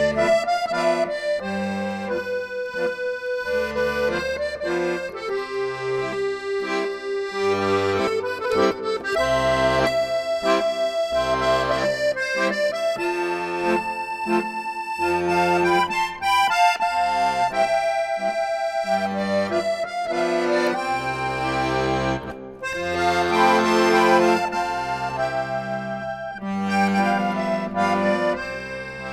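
Instrumental background music: a melody of held notes over a changing bass line.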